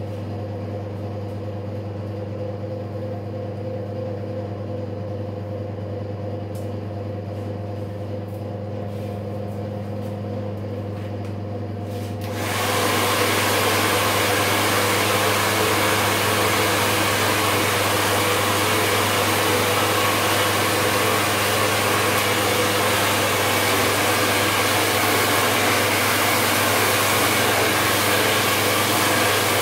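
A steady low hum, then about twelve seconds in a hand-held hair dryer comes on at full and blows a loud, steady rush of air to the end.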